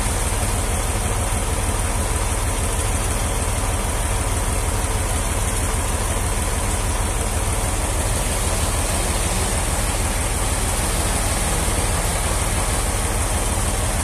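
Large band sawmill running with a steady low drone.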